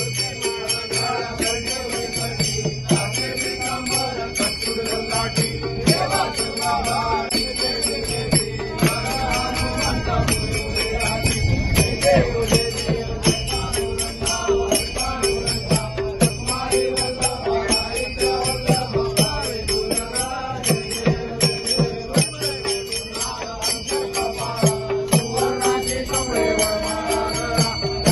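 A group of voices singing a Hindu aarti to Ganesh together, with jingling metal percussion ringing on a steady beat.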